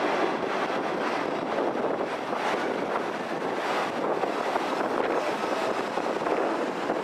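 Steady rushing noise heard from an open-air train car: the train rolling on the rails, mixed with the river rapids close alongside and some wind on the microphone.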